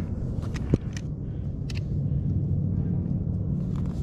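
Climbing rope being handled while tying a catastrophe knot: light rope rustles and small gear clicks, with one knock about three-quarters of a second in, over a steady low rumble.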